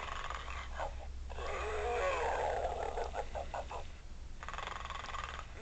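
A pig snoring: a long rasping breath about a second in, then a quick run of short pulses, a brief pause and another breath near the end.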